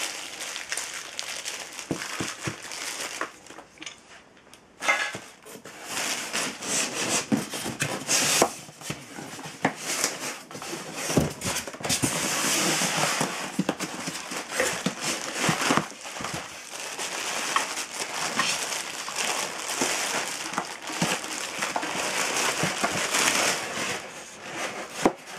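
Plastic wrapping crinkling and foam packing rubbing and scraping as parts are handled and pulled out of a box, with scattered small knocks throughout.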